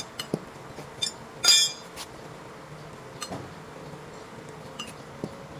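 Metal tools and parts clinking and tapping: about nine separate knocks and clinks, the loudest a short ringing metallic clink about one and a half seconds in.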